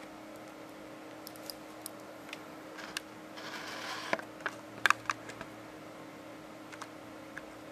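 A brief rustle, then a handful of sharp clicks and taps over a steady low hum.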